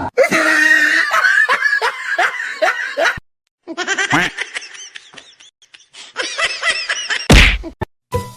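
People laughing in quick repeated bursts. After a brief cut there is a second, higher-pitched stretch of laughter, and then one loud, sudden noise near the end.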